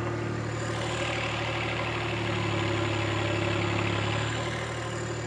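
Turbocharged John Deere 1025R's three-cylinder diesel held steady at idle while straining against a load cell in low range and four-wheel drive. From about a second in until about four seconds in, a hiss of the tyres spinning on the gravel rises over it and fades: the tractor has lost traction at the limit of its pull.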